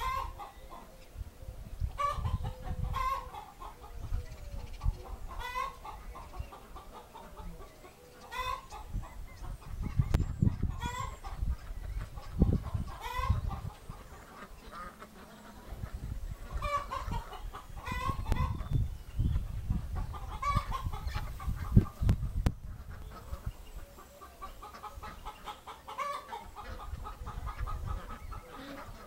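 Chickens clucking and calling, a call every second or two, over an intermittent low rumble.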